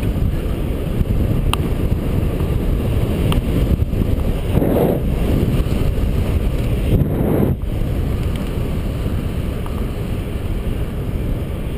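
Steady wind rush buffeting a GoPro HD Hero's microphone on a moving road bicycle, with brief louder gusts about five and seven seconds in.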